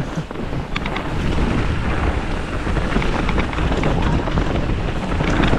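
Mountain bike riding downhill over snow and frozen mud: a steady rush of wind buffeting the microphone, with tyre rumble and scattered short rattles and knocks from the bike over bumps.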